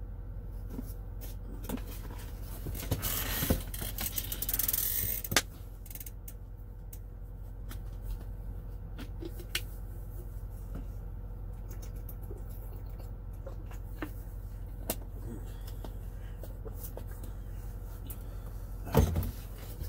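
Eating and handling sounds: short clicks of a utensil and food container, with a couple of seconds of rustling a few seconds in and a louder knock near the end, over a steady low hum.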